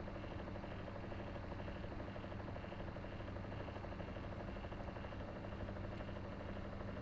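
Heating fan running steadily with an even hum and a whooshing rush of air.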